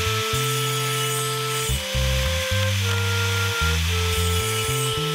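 Table saw running and cutting a kerf into a hardwood block, a steady hiss of blade through wood, under background music with a steady bass line.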